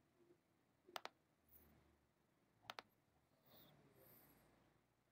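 Two faint double clicks of a computer mouse, one about a second in and one just before the middle, against near silence, with a faint soft rustle after them.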